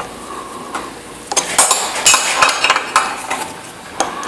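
Metal tools and steel parts clinking and clattering as they are handled, in a busy run after a quiet first second, with one more sharp clink near the end.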